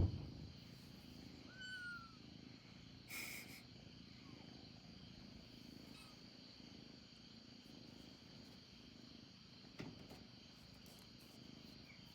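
Domestic cat purring steadily, close by. There is a sharp thump right at the start, a brief rustle about three seconds in, and a faint click near the end.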